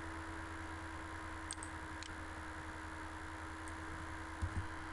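Steady microphone hiss and electrical hum, with a few faint mouse clicks about one and a half to two seconds in and two short low knocks near the end.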